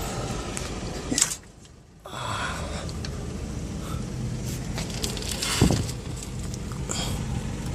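A few metallic clicks and knocks, the sharpest about five and a half seconds in, as a Toyota Coaster bus's brake caliper assembly is worked off the disc, over a steady outdoor background hum. The sound briefly drops out about a second and a half in.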